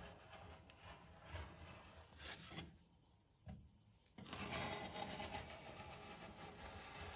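Metal spatula scraping along a frozen steel cold plate as it rolls thin sheets of frozen ice cream into rolls, a rasping scrape. A quiet pause about three seconds in, then the scraping resumes louder.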